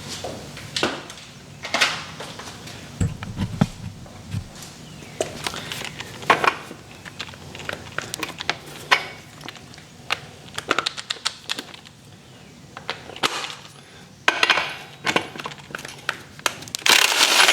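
Metal clicks and clanks of a socket and tools being worked on a dirt bike's rear axle nut, irregular and scattered. Near the end a power tool runs briefly, loud and whirring, as the nut is spun off.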